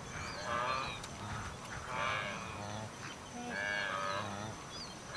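Wildebeest calling: repeated wavering, bleating calls, roughly in pairs every one and a half to two seconds, over low grunts from the herd. This is typical of a separated calf calling among the adults.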